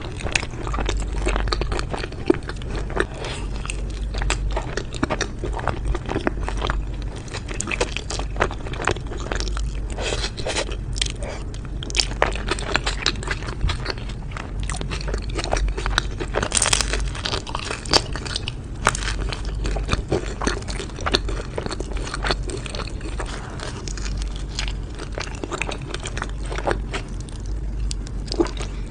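Close-miked mukbang eating: a person biting and chewing crunchy food, making a dense, continuous stream of crisp crunches and mouth clicks.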